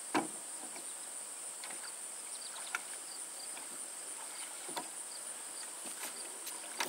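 A steady, high insect chorus drones over the pond. There is a brief sharp sound just at the start, and a few faint knocks from the oar being worked in the water.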